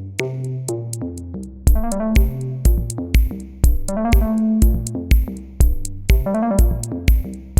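Electronic background music: a drum-machine beat with a kick about twice a second, hi-hat ticks and synthesizer notes.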